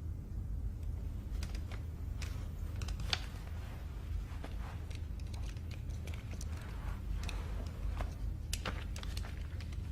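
Steady low room hum with scattered small clicks and rustles of people shifting and handling things.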